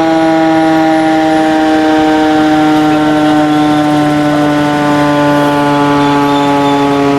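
The Plengkung Gading siren (gauk) sounding loud and unbroken, a single tone with its overtones that sinks slowly in pitch: the siren winding down after being switched off.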